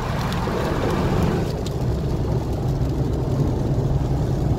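Steady cabin noise of a car in a dust and rain storm: low engine and tyre rumble with a wash of wind, and a few faint ticks in the first couple of seconds.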